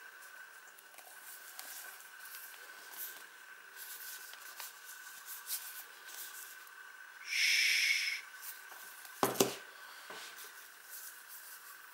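Kitchen handling noise as a plastic cocoa-powder tub and a bowl of crushed biscuits are worked by hand: faint rustles and taps, a brief loud rasp about seven seconds in, and a sharp knock a little after nine seconds as something is set down on the table.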